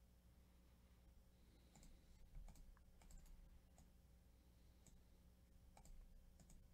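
Faint, scattered clicks of a computer mouse and keyboard, starting about two seconds in, over a low steady hum.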